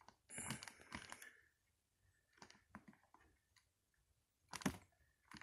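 Faint scattered clicks and brief handling rustles from a handheld camcorder as its playback buttons are pressed to step through the footage frame by frame, with one sharper click about four and a half seconds in.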